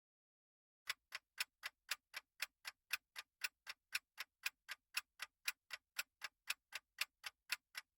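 Countdown timer sound effect ticking like a clock, sharp even ticks about four a second, starting about a second in.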